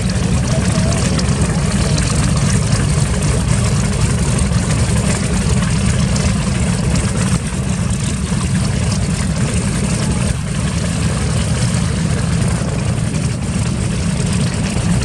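Wright R-2600 Twin Cyclone radial aircraft engines running steadily and loudly, a deep, rough engine drone with a constant level.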